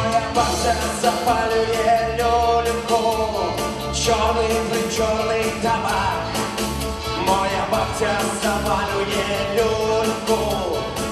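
A man singing a pop song into a handheld stage microphone, over amplified backing music with a steady beat and bass.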